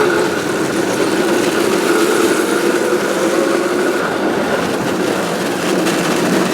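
A small vehicle's motor running steadily as the three-wheeler is ridden, its pitch drifting slightly up and down.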